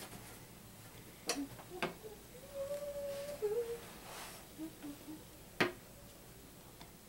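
A few sharp clicks and knocks as a person settles into a chair and handles a phone, the loudest near the end. In between, a soft hum: one held note that steps down in pitch, then a few short lower notes.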